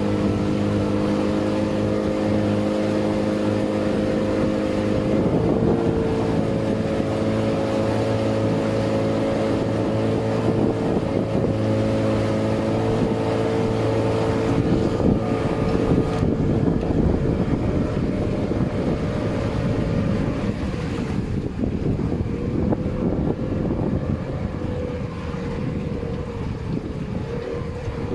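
Motorboat engine running steadily, a droning note with wind noise on the microphone. The note shifts slightly a few seconds in and grows less even near the end.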